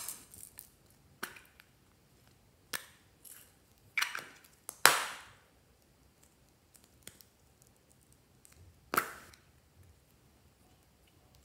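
Hard plastic M&M-shaped slime containers clicking and snapping as they are handled and pried open: about six separate sharp clicks with quiet between them, the loudest about five seconds in.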